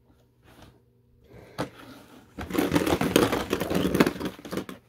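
Beyblade tops rattling and clattering against each other and the plastic stadium as it is shaken under a cloth. A few faint rustles come first, then about two seconds of dense, rapid clicking starting about two and a half seconds in.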